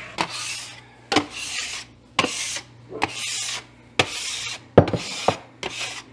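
Metal bench scraper scraping flour and dried dough off a kitchen countertop in repeated strokes, about one a second, each starting with a sharp click as the blade meets the counter and followed by a short rasp.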